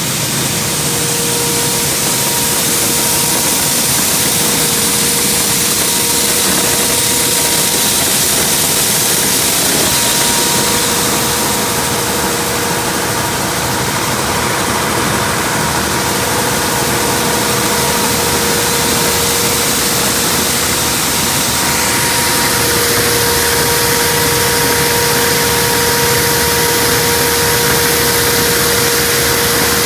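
Combine harvester running steadily at working speed: a loud, even engine and machinery noise with a constant whine.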